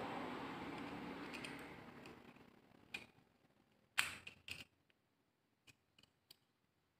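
Small clicks and taps from handling a plastic two-pin socket with a screwdriver while fitting wires to its terminals: one click about three seconds in, a quick cluster of louder clicks around four seconds, then three faint ticks near the end. A low hiss fades away over the first couple of seconds.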